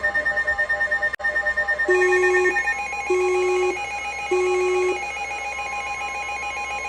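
NOAA weather radios sounding their alert tones for a new warning. A rapidly pulsing electronic alarm stops about two seconds in and gives way to a steady high tone, with three long, lower beeps over it.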